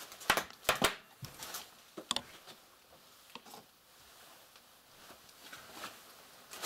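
Bubbles of plastic bubble wrap popping as it is handled: several sharp pops in the first two seconds, a few fainter clicks a little later, then quiet rustling.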